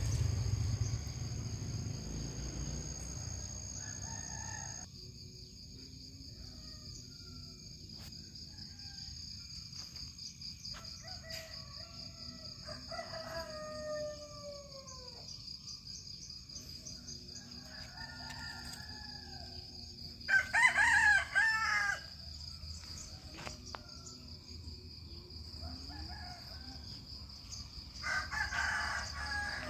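Village roosters crowing: fainter calls in the middle, then a loud crow about two-thirds of the way through and another near the end, over a steady high-pitched insect drone.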